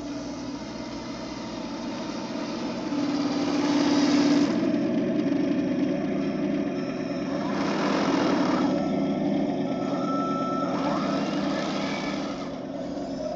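Heng Long RC Leopard 2A6 model tank driving over sand: its electric drive motors and gearboxes whine and the plastic tracks rattle, mixed with the imitation diesel-engine sound from its built-in sound unit. It gets louder about four seconds in and again about eight seconds in.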